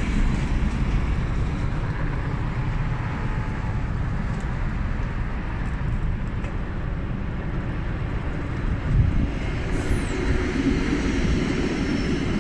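Steady low drone of a helicopter flying overhead at a distance. There is a brief louder bump about nine seconds in, and a short high squeak that falls in pitch just after it.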